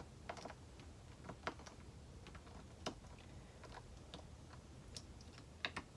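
Faint, irregular small clicks and ticks from hands working the metal plates and screws of a screw-together oblong grommet.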